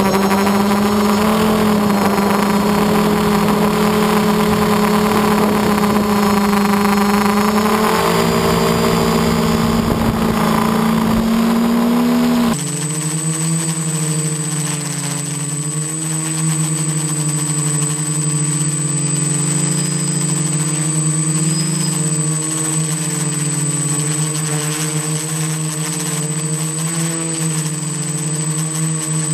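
Quadcopter's electric motors and propellers humming steadily, heard from a camera mounted on the multirotor; the pitch shifts a little as the motors change speed. About halfway the sound cuts to a second recording of the same kind of hum, lower and joined by a thin steady high whistle.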